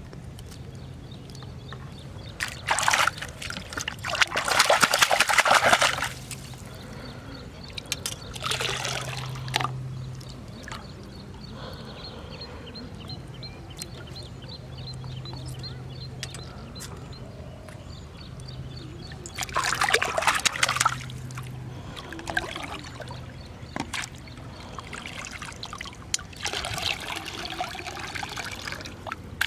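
Shallow river water splashing and trickling as it is stirred by hand, in four bursts with quieter lapping between them; near the end, water is poured off a steel plate back into the river.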